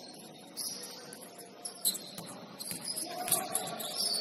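Basketball sneakers squeaking on a gym floor: several short, high squeaks. A couple of sharp thumps come through, about two seconds and three seconds in.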